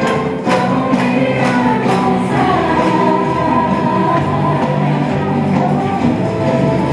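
Music: a group of voices singing over instruments, with regular percussive hits through the first couple of seconds.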